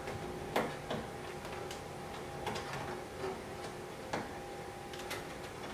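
Scattered light clicks and taps of a screw and washer knocking against the rear bumper as they are worked by hand toward a mounting hole for a carbon fiber diffuser fin, over a faint steady hum.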